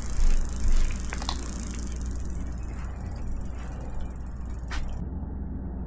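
Steady low rumble with a few light clicks and knocks as a frying pan is carried and set down on a table.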